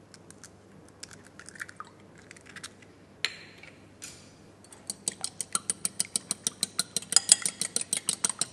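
A few faint clicks as a cracked egg is opened into a ceramic bowl. Then, from about five seconds in, a fork whisks the egg against the bowl: a fast, even run of clicks, about seven a second, getting louder.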